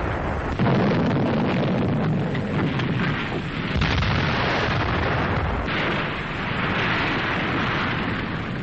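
Continuous rumble of explosions from heavy shelling, with no single blast standing out, shifting in character a few times.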